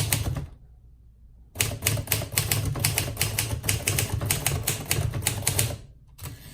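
Triumph Perfekt manual typewriter being typed on fast, its typebars striking the platen about five or six times a second, with a pause of about a second shortly after the start.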